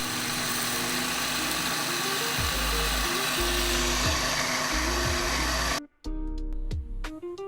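A small electric kitchen appliance motor running steadily, such as a blender working cake batter, over background music with a steady beat. It cuts off suddenly near the end, leaving only the music.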